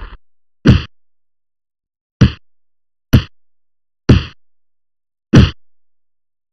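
Punch and hit sound effects: six short, heavy thwacks, irregularly spaced about a second apart, with dead silence between them.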